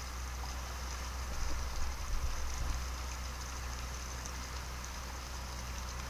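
Water running steadily, with a low rumble underneath and a few faint knocks about two seconds in.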